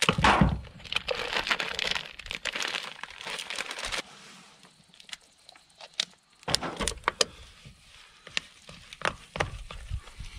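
Crinkling of a plastic packet of hush puppy mix as it is slit open with a knife and the dry mix is shaken out into a plastic bowl, for about the first four seconds. After that it is much quieter, with scattered light clicks and knocks.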